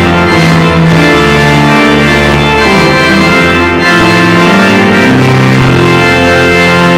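Church organ playing a hymn in slow, sustained chords that change about once a second.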